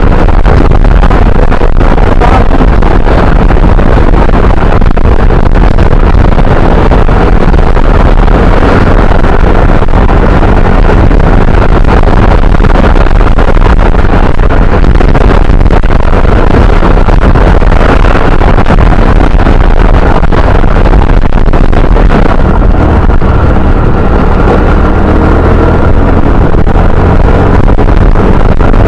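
Motorbike ride: the bike's engine and tyres running steadily at road speed, with wind rushing over the handlebar-mounted camera's microphone, loud and unbroken.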